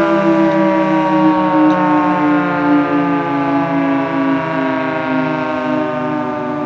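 Federal Signal 2T22B dual-tone rotating outdoor warning siren sounding its two-note chord, its pitch slowly falling.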